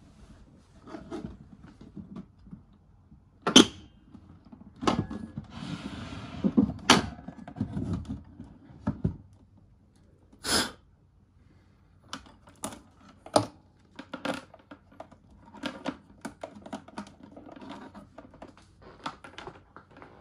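Handling noise from a vintage Philips portable record player's case: a series of sharp clicks and knocks as the lid is unlatched and opened, then rustling and clatter as the coiled power cord is lifted off the turntable.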